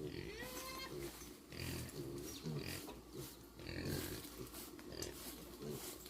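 Short, low animal calls repeated several times, with a few higher chirps about half a second in.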